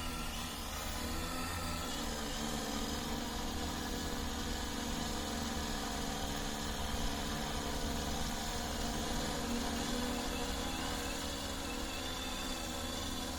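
A 15-litre agricultural spraying drone's rotors humming steadily in flight.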